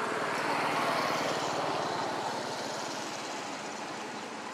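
A motor vehicle passing: engine and road noise swell to a peak about a second in, then fade away slowly, with a steady, fast engine pulse underneath.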